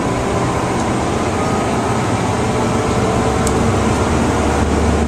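Fire engine's diesel engine running and road noise heard from inside the cab while it is driven, a steady low drone that grows louder near the end.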